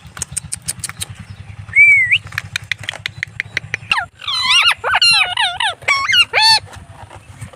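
Indian ringneck parrot vocalising: a run of sharp clicks, a short rising whistle about two seconds in, then from about four seconds a string of calls that bend up and down in pitch.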